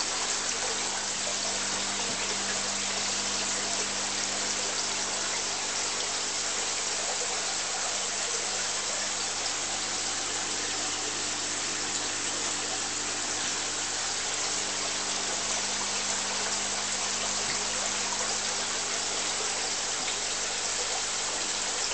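Aquarium filtration and aeration running: a steady hiss of bubbling, trickling water over a constant low pump hum.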